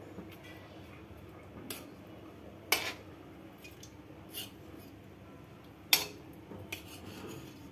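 A few light clinks of steel kitchenware over quiet room tone, the two loudest just over a third of the way in and about three-quarters through.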